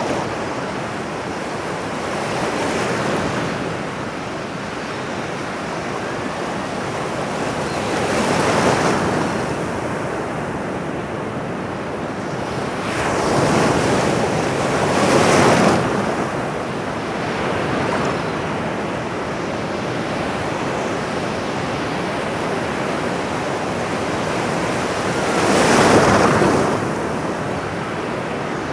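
Ocean surf: a steady wash of waves with a breaker swelling and falling away every few seconds, the loudest one near the end.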